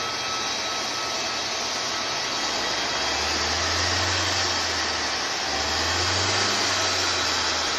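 Airport fire truck's water cannon spraying, a loud steady rushing hiss, with a low engine rumble underneath that swells twice.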